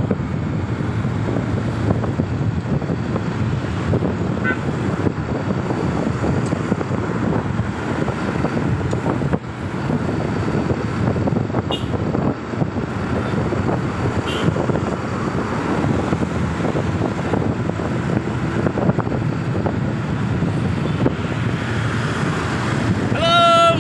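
Steady rush of traffic and road noise heard from a moving vehicle, with wind buffeting the microphone. Near the end a voice calls out briefly.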